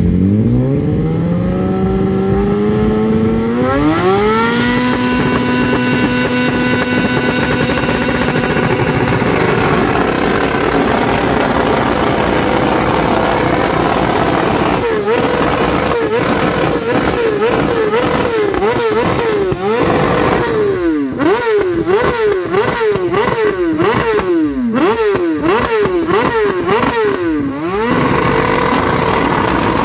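BMW S1000RR inline-four engine revved hard on the spot: it climbs from idle to high revs over the first few seconds and holds there. Then the throttle is chopped and reopened over and over, about one to two times a second, with the exhaust crackling and popping as it spits flames. Near the end it settles back to a steady held rev.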